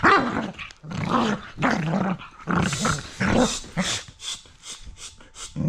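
Dogs growling in a run of rough bursts as they play-fight, easing into shorter, quicker sounds in the last second or so.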